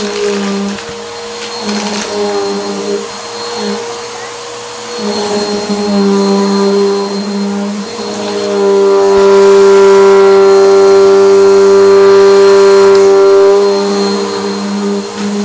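Eureka Maxima upright vacuum cleaner running steadily as it is pushed over a rug, a level motor hum with a thin high whine. It swells louder for several seconds in the second half, then settles back.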